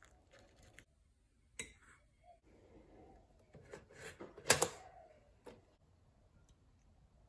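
A few light knocks and clicks of things being handled, with soft rustling between them; the sharpest knock comes about four and a half seconds in.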